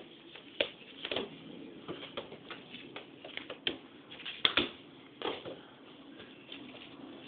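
Irregular knocks and thuds, several a second in places, over a steady hiss; a double knock about four and a half seconds in is the loudest.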